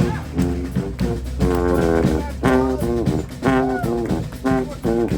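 Live band music: short melodic horn phrases with bending notes over a steady bass line.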